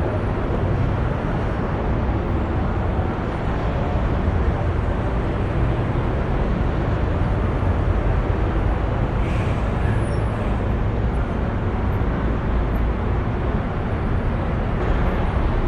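Busy city street ambience: a steady rumble of traffic from cars and buses, dense and even throughout.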